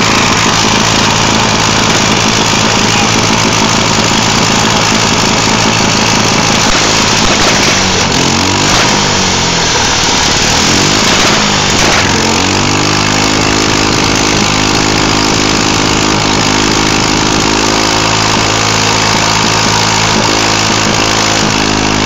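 Small 3.5 hp Briggs & Stratton single-cylinder engine on a mini bike running loudly with no rider, being run on nitrous oxide in an attempt to blow it up. Its speed wavers up and down around the middle, then holds steady.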